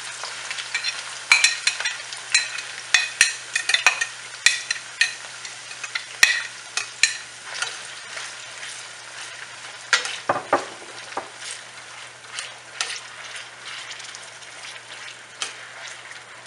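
Sliced onions sizzling in hot oil in a stainless steel pan, just put in to fry until light golden brown. A spoon clicks and scrapes against the pan again and again as they are stirred. The sizzle is strongest at the start and settles somewhat later on.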